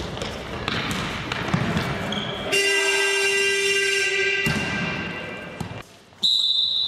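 Futsal on an indoor hall court: ball kicks and shoe knocks echo in the hall. About two and a half seconds in, a horn sounds one steady blast for about two seconds. Near the end, a referee's whistle blows a loud, shrill note for the kick-off.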